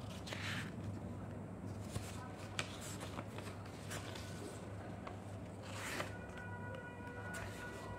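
Pages of a paper booklet being turned and flipped by hand, rustling, with louder swishes about half a second in and again near six seconds and a few light clicks between.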